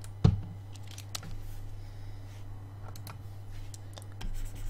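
Scattered light clicks and taps from computer input at a desk, with one sharper thump about a quarter second in, over a steady low hum.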